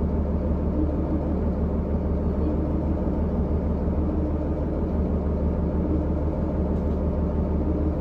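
Steady low drone of a 2010 New Flyer D40LFR diesel transit bus, its Cummins ISL engine and drivetrain heard from inside the cabin near the rear seats.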